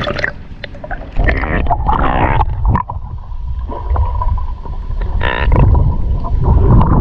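Lake water gurgling and sloshing over a camera dipped below the surface from a coracle, heard as a loud muffled rumble with a thin steady whine in the second half.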